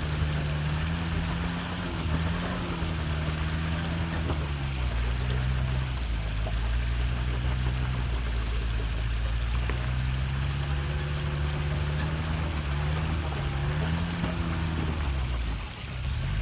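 An engine running hard, its pitch rising and falling several times, over a continuous rush of water.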